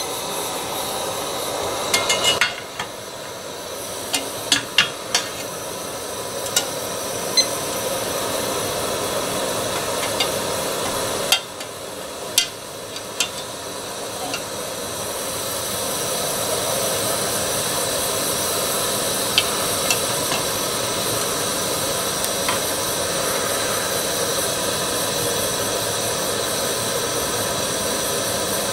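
Gas camp-stove burner hissing steadily, with a few metal clinks and knocks in the first half as a mess-kit pot of water is set on it. The hiss grows a little louder and fuller about halfway through and then holds steady.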